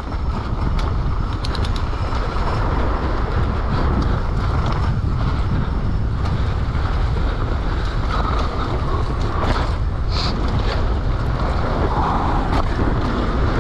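Steady rolling rumble with wind noise on the microphone and a few scattered rattles, as a downhill mountain bike runs over rough ground.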